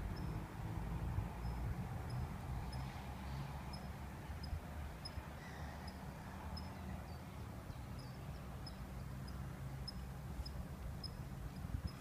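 Wind buffeting the microphone as a low rumble while riding a bicycle, with a faint high squeak repeating evenly a little under twice a second.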